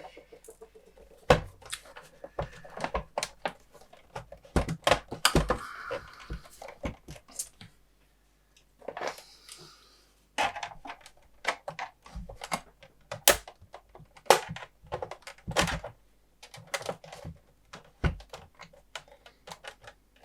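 Irregular clicks, knocks and short scrapes of plastic and metal parts being handled as a Tektronix TDS 210 oscilloscope is taken apart, its accessories and panels pried off one by one.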